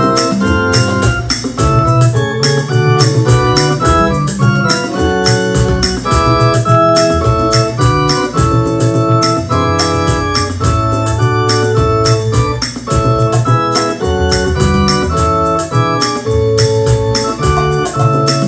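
Electronic keyboard played with both hands: a hymn in held chords over a deep bass line, with a steady beat of quick ticks from the keyboard's accompaniment.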